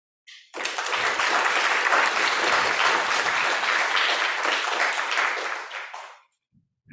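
Audience applauding. It starts about half a second in and dies away after about five and a half seconds.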